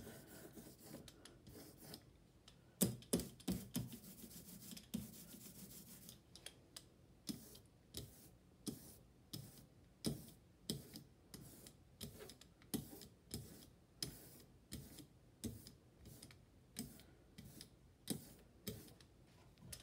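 Rubber brayer rolling printing ink back and forth over an engraved plastic (HIPS) block: a faint tacky rubbing with a short tick on each pass, about two a second.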